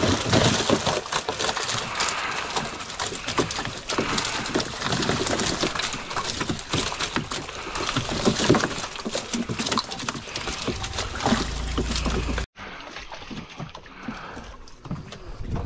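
Water sloshing and splashing around a small fishing boat, with many irregular knocks and rustles. It cuts off abruptly about twelve seconds in and carries on quieter.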